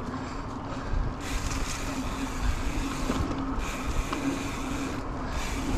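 Mountain bike riding a dirt singletrack trail: a low, continuous rumble of tyres on the trail and wind noise, with a steady hum that comes and goes.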